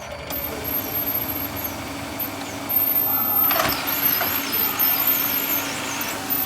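Canon MF3010 laser multifunction printer running a photocopy: its scan and print mechanism whirring steadily, getting louder about three seconds in. It runs after its worn, stripped drive gear was replaced.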